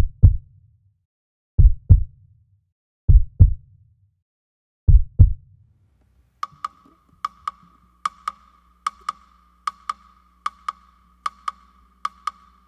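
Opening of a live band's song: paired low thumps like a heartbeat, four pairs about a second and a half apart, then from about halfway sharp high clicks repeating roughly twice a second over a faint low hum.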